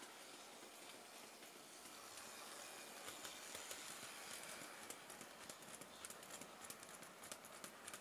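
Faint rolling of an OO-gauge Bachmann Class 20 model train hauling tank wagons along the track, swelling about three seconds in as the wagons pass, then a run of quick light clicks from the wheels on the rails.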